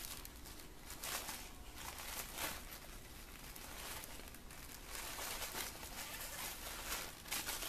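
Faint, intermittent rustling and crinkling of tissue paper being handled as a gift is unwrapped, over a low steady hum.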